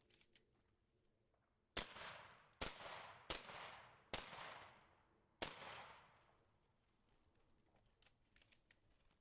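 Five rifle shots fired in quick succession, less than a second apart, with a slightly longer pause before the last. Each shot is followed by a fading echo.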